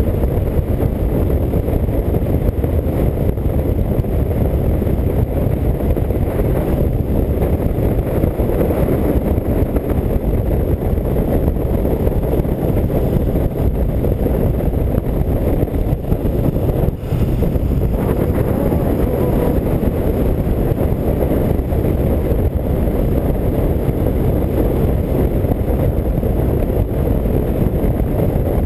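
1984 BMW R100RS air-cooled flat-twin running steadily at highway cruising speed, its drone mixed with a deep, even rush of wind.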